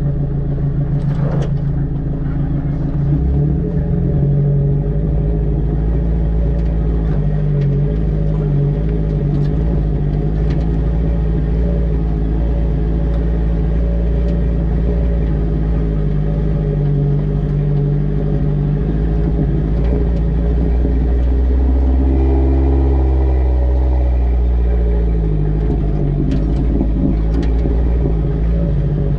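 A vehicle's engine running steadily while driving over a rough, rocky track, picked up close from the rear bumper. About 22 seconds in the engine note falls as the revs drop, and a few short knocks come through near the start and near the end.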